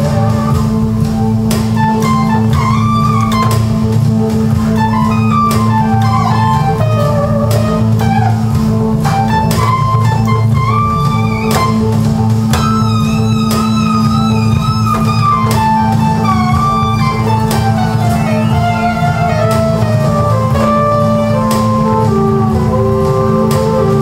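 Electronic keyboard solo: a lead melody with sliding, bending notes over a sustained low note and a steady beat of drum hits.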